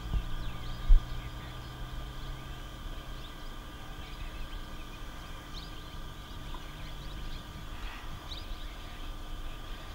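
Wild outdoor ambience: a steady high drone of insects with a few short bird chirps, over a low hum that fades after about three seconds. A single dull thump about a second in is the loudest sound.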